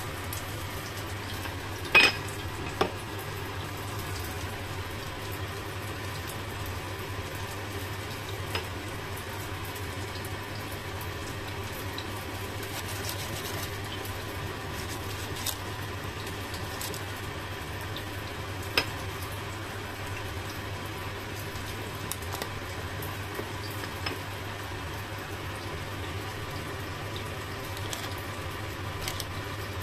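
A metal spoon clinking a few times against the air fryer basket and wings while honey glaze is spooned over them, the loudest clink about two seconds in. Under it runs a steady low hum and hiss.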